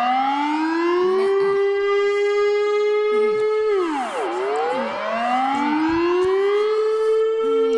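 Civil defense siren wailing: its pitch climbs and holds, dips about halfway through, then climbs and holds again.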